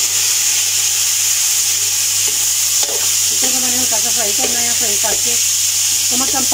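Chicken pieces sizzling as they fry in hot oil in an aluminium wok, stirred with a slotted metal spatula. A person's voice comes in over the sizzle about halfway through.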